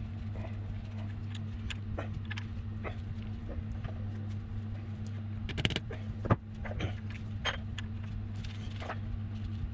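Scattered metallic clicks and clinks as change gears are handled and fitted on a Myford Super 7 lathe's gear train and a stud nut is tightened with a spanner, the sharpest clicks coming in the second half. A steady low hum lies underneath throughout.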